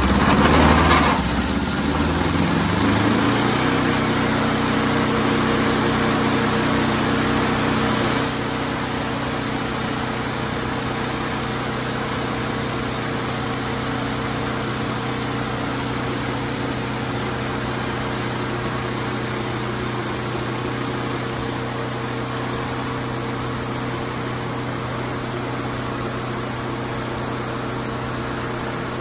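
Wood-Mizer LT28 portable sawmill's engine running steadily. It is louder and shifting in pitch for the first two or three seconds, and settles to an even level after about eight seconds.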